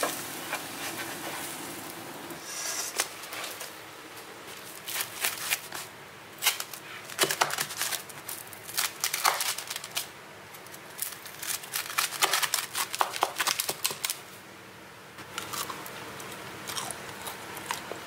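Potato cheese bread sizzling briefly in a non-stick pan, then a large knife cutting through its crisp, pan-fried crust on parchment paper: repeated bursts of crunching and crackling, fainter near the end.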